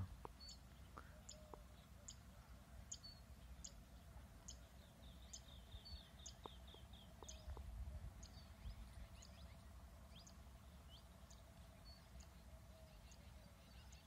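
Faint bird calls: short high chirps repeating about every three-quarters of a second, with a rapid trill in the middle. A low outdoor rumble sits underneath.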